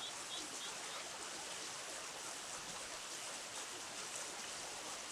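Steady rush of flowing river water, with a few faint high chirps repeating quickly in the first second.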